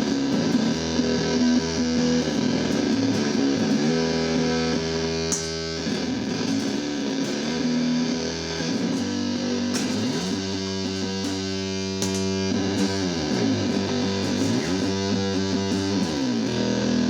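Bass guitar played through a home-built Fuzz Dog bass fuzz pedal into a small guitar amp: heavily distorted, fuzzy sustained notes, several of them sliding up and down in pitch in the second half.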